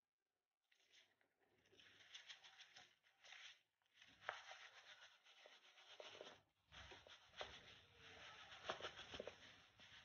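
Loose table salt sliding and pattering across a sheet of paper as it is tilted and shaken, a faint gritty hiss with many small ticks, starting about a second and a half in.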